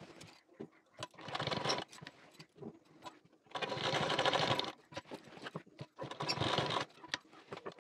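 Domestic sewing machine stitching a nighty's front placket in three short runs, each about a second long, with pauses between as the fabric is repositioned.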